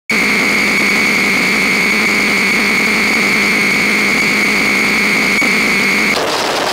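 Homemade modular synthesizer putting out a steady noise drone with a high steady tone over it; about six seconds in the tone drops out and the noise changes to a different texture.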